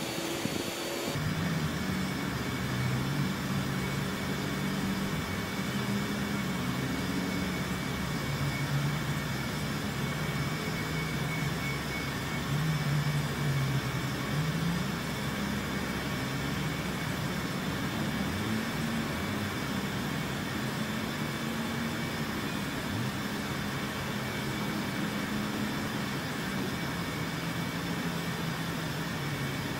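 Steady low engine drone, its pitch slowly wandering up and down.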